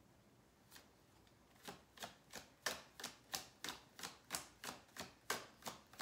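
A tarot deck being shuffled overhand by hand, with packets of cards patting down onto the deck in a steady rhythm of about three soft taps a second, starting about a second and a half in.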